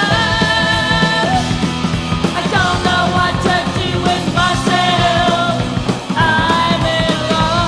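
Heavy metal song from 1983: distorted electric guitars, bass and drums playing, with a lead line of held notes that bend and slide in pitch.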